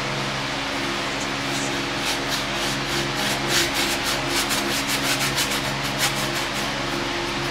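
Flat paintbrush scrubbing paint onto textured canvas in rapid strokes, about four a second, from about two seconds in until near the end, over a steady low hum.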